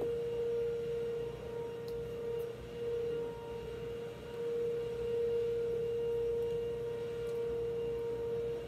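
A steady, unchanging hum at one mid pitch, with a faint low rumble under it.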